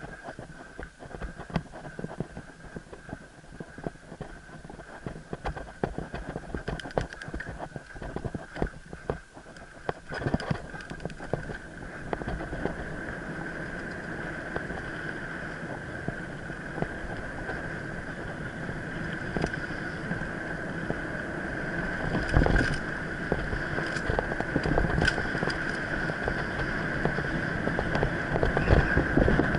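Mountain bike ridden over a forest singletrack, heard from a head-mounted camera. For the first dozen seconds the bike rattles and knocks over roots and bumps. Then a steady rush of tyre and wind noise with a constant high tone takes over, broken by a few hard knocks near the end.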